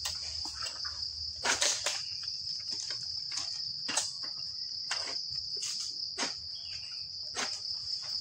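Steady high-pitched insect chorus, crickets or cicadas, with about a dozen irregularly spaced short sharp knocks or scrapes over it.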